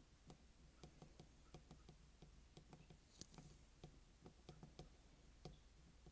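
Near silence with faint, irregular light ticks, a few a second, a little stronger about three seconds in and again near the end: a soldering iron tip being stroked and pressed along a calculator's LCD ribbon cable to re-melt its adhesive.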